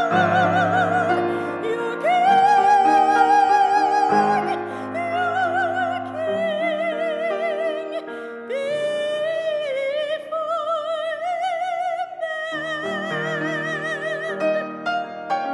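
A woman sings solo in a classical, operatic style with a wide vibrato on long held notes, accompanied by a grand piano. Near the end the voice stops and the piano plays on alone.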